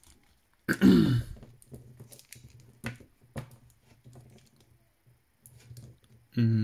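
Hands handling a Hot Toys DX12 Batman figure, pressing its plastic armor pieces into place: faint small clicks and rubbing. A short vocal sound comes about a second in, and a voice starts again right at the end.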